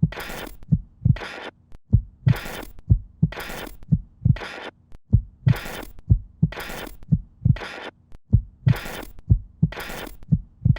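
A steady, even rhythm of short low thuds, often in pairs, alternating with brief bursts of hiss about every two-thirds of a second, over a faint steady hum.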